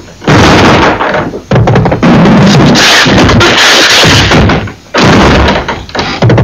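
Loud, dense, harsh music with knocking percussion, cutting out abruptly a few times.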